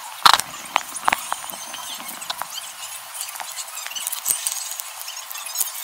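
A metal spoon tapping and clicking against foil baking cups and a ceramic plate while spooning melted chocolate into the cups: one sharp knock just after the start, then scattered lighter clicks.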